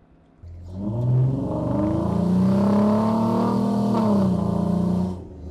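Off-road 4x4's engine revving under acceleration: it comes in suddenly, the pitch climbs about a second in and holds high, then drops about four seconds in before the sound cuts off abruptly.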